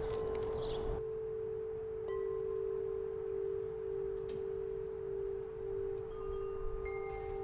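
Soundtrack music: a sustained, chime-like tone held throughout, with a few higher ringing notes entering and fading over it.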